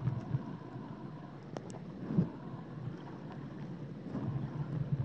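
Low, uneven underwater rumble of moving water against a submerged camera, with a few short, sharp clicks about one and a half to two seconds in.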